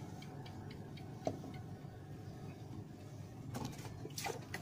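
Steady low drone of a wooden boat's motor running out on the water, with a few sharp clicks and knocks about three and a half to four seconds in.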